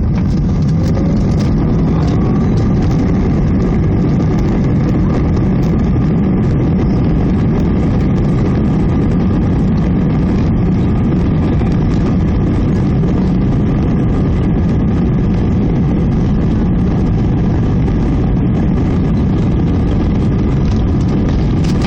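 Inside the cabin of an Airbus A319 airliner, seated over the wing: the jet engines run with a steady low rumble while the plane rolls along the runway.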